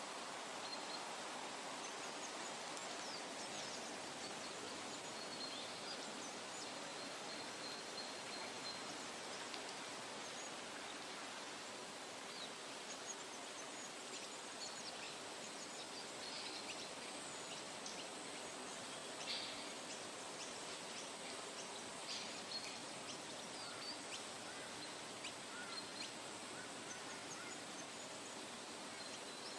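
Forest ambience: a steady rushing hiss with small birds chirping and calling now and then over it.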